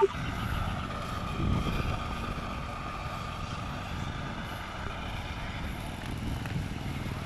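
Wind noise on a handlebar-mounted microphone and road bike tyres running on asphalt while riding steadily, with a faint steady whine above the rush.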